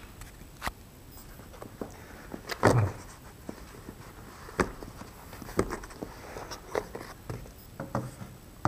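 Handling noise of a phone being unboxed: a smartphone and its cardboard box parts lifted and set down on a wooden table, giving scattered light clicks and knocks with one heavier thump about three seconds in.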